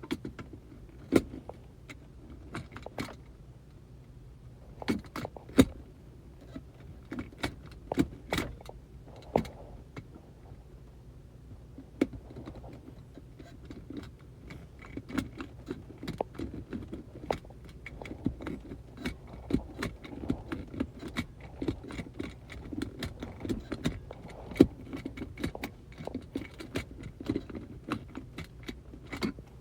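Metal keys and lock parts jangling and clicking irregularly, with many sharp clinks, as a steering wheel lock is handled, over a steady low hum.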